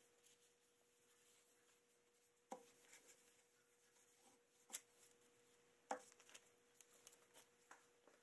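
Near silence with a faint steady hum, broken by three soft knocks from a wooden hand plane being handled and set down while it is wiped with boiled linseed oil.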